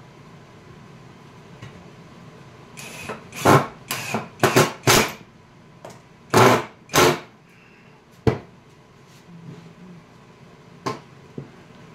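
Cordless drill boring pilot holes into hardwood in a series of short bursts, about half a dozen in two seconds, then two more a moment later. A sharp knock follows, and another near the end.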